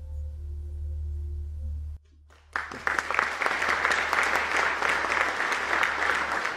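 Final chord of a solo grand piano piece held and ringing, cut off abruptly about two seconds in. Half a second later the audience breaks into applause that carries on.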